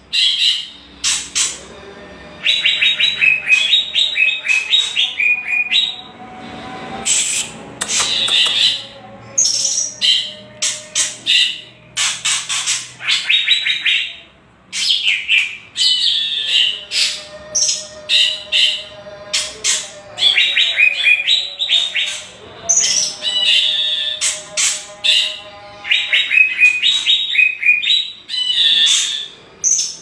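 White-rumped shama and greater green leafbird giving kretekan: harsh, rapid rattling calls in repeated trains of fast clicking notes, mixed with short whistled phrases.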